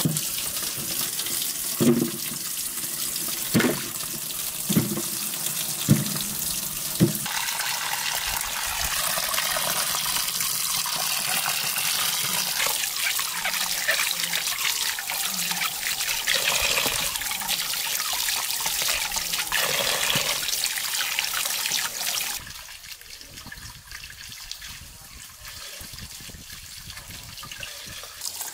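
Water running from an outdoor tap into a metal basin while vegetables are rinsed under it by hand. There are five short knocks in the first seven seconds, and the running water stops suddenly about 22 seconds in as the tap is shut.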